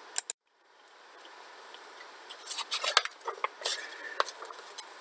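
Faint scattered clicks and light rustling over low room hiss, clustered in the middle of the stretch, after two short clicks at the start and a brief cut to dead silence about half a second in.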